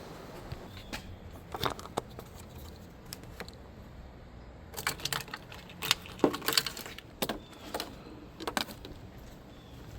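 Irregular metallic clinks and rattles, like small metal objects being handled, bunched together in the middle.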